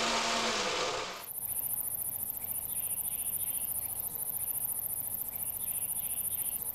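Insects trilling: a steady, very high-pitched, rapidly pulsing trill like crickets, starting about a second in and cutting off suddenly at the end. Before it, a brief hiss with a low hum dies away.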